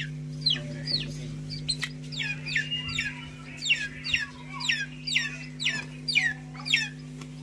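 A bird calling in a run of short, high chirps that fall in pitch, about two a second, over a steady low hum.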